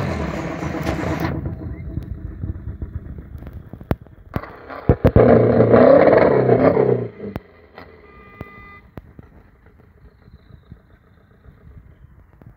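Car engine noise: a falling engine note fades out in the first second, then about four seconds in an engine revs loudly for some three seconds and drops away abruptly. Scattered light clicks follow.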